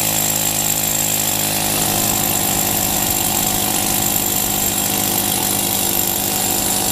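Pneumatic air chisel running continuously, a loud steady rapid hammering buzz.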